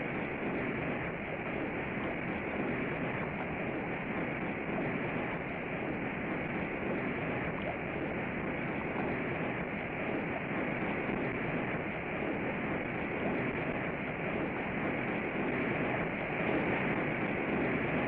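Steady rushing of river rapids: an even, unbroken noise of white water.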